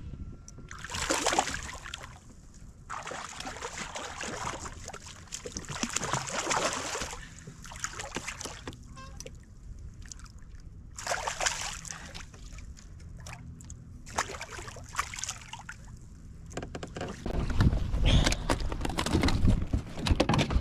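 Water splashing and sloshing in several bursts as a hooked striped bass thrashes at the surface beside a kayak while being landed. A louder low rumbling comes near the end.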